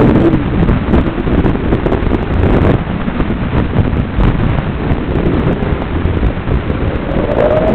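FPV racing quadcopter's motors and propellers in flight, heard as a loud, rough rushing noise with a wavering motor whine that rises in pitch near the end.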